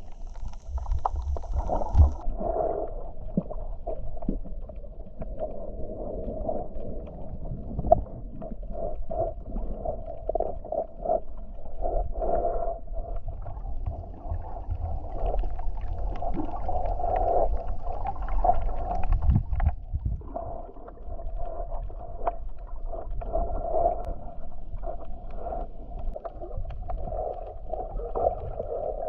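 Muffled underwater sound of water moving and gurgling around a submerged camera, over a steady low rumble, with scattered small clicks.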